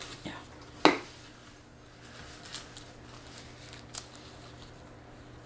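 Handling sounds at a table of fast food: one sharp click about a second in, then soft crinkling of paper burger wrappers and a few light ticks.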